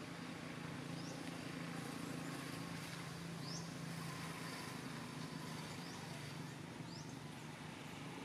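Outdoor ambience: a steady low hum under a light wash of background noise, with a few short, high, rising bird chirps about a second in, midway and near the end.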